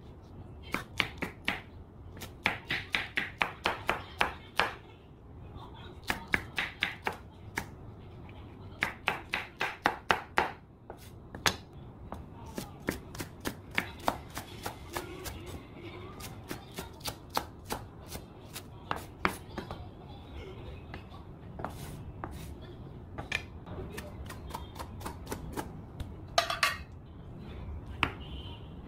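A broad cleaver-style knife chopping green chili peppers and green onions on a wooden cutting board: runs of quick sharp knocks, about four or five a second, broken by short pauses.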